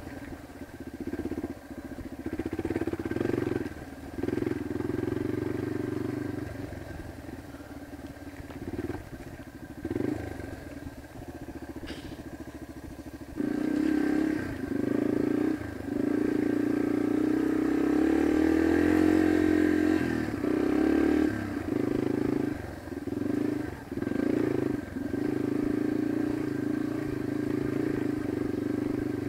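Yamaha dirt bike engine riding single track, the throttle opening and closing so the revs keep rising and dropping. It runs louder and harder from about halfway on.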